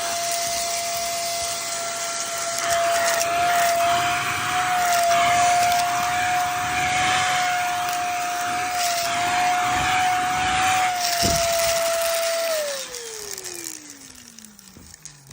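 SOWTECH corded stick vacuum running with a steady high whine over a rush of air, then switched off near the end, its whine falling in pitch as the motor spins down. A single knock comes shortly before it is switched off.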